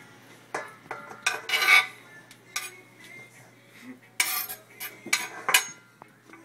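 Kitchen knife clacking and scraping against a cutting board as chopped cucumber is pushed off into a stainless-steel bowl: a string of sharp clinks and short scrapes, loudest about a second and a half in and again just after four seconds.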